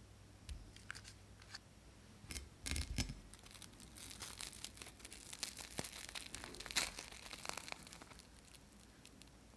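Crisp bread-crumb crust of a deep-fried mozzarella corn dog crackling and tearing as it is broken open by hand: a dense run of dry crackles through the middle, after a few light clicks near the start.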